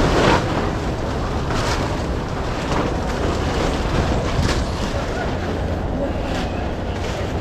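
Wind buffeting the microphone: a steady low rumble with a few brief gusts.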